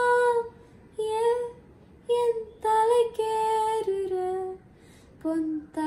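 A young girl singing a slow Tamil film song unaccompanied, holding long notes in short phrases with brief pauses between them.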